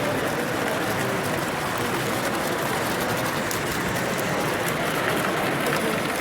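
Steady background hubbub of a crowded exhibition hall, with faint light clicks scattered through it.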